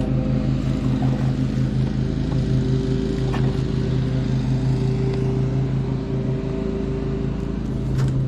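Boat motor running steadily: a low, even hum with a regular pulse.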